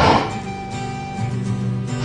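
Background music on acoustic guitar: a strum right at the start, then held notes over a steady bass.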